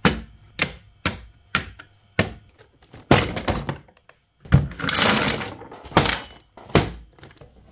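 A run of sharp knocks as hand tools, plastic-handled nippers and a hobby knife, are set down on a cutting mat. Then a cardboard model-kit box is handled and opened, with longer sliding scrapes and a few more thunks.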